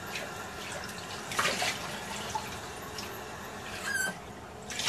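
Kitchen handling sounds: scattered light clicks and knocks, a short rush of noise about a second and a half in, and a brief squeak near the end, as cookware and ingredients are handled for making an oil in a saucepan.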